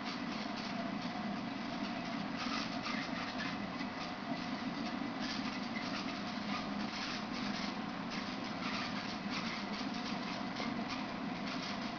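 Steady low hum of an aquarium's pumps and filtration running, with irregular faint crackling over it.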